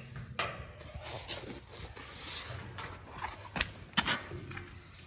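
Ratcheting wrench clicking and scraping as a bolt at the base of a fuel transfer tank is tightened, with a couple of sharper metal knocks about three and a half and four seconds in.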